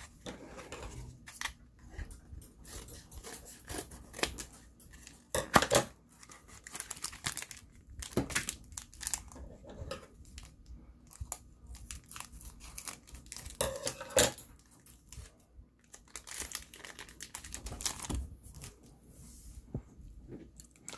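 A Bakugan booster pack's wrapper crinkling and tearing as it is opened by hand, in irregular bursts with the loudest rips about five and fourteen seconds in.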